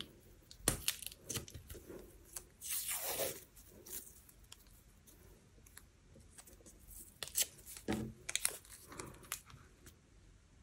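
Washi tape pulled from its roll and torn off, with one longer rip about three seconds in amid scattered light clicks and taps of handling.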